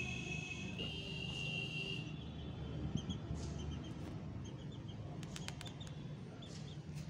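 Young chicks peeping: a drawn-out high peep in the first two seconds, then short high peeps scattered through the rest, over a steady low hum, with a few sharp clicks about five seconds in.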